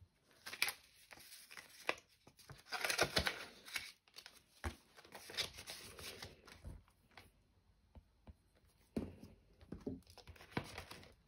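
Polymer banknotes, paper cash envelopes and plastic binder pockets being handled: crinkling and rustling in short bursts, with a quiet stretch past the middle.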